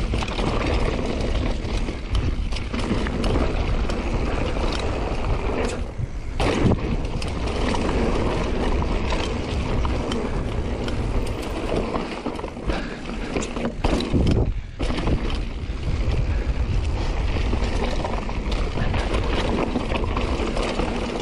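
Mountain bike riding fast down a dirt singletrack: a steady rush of tyre and wind noise, with frequent rattles and knocks from the bike over the rough trail.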